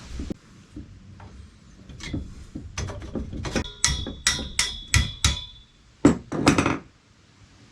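Metal parts of a mini bike being hammered apart: a quick run of about seven ringing hammer blows on metal, about three a second, followed by two louder, longer clatters near the end.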